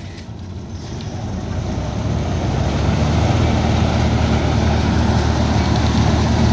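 Mahindra 265 DI three-cylinder diesel tractor driving a thresher through its PTO, engine and threshing drum running together as crop bundles are fed in. The sound grows louder over the first three seconds, then holds steady.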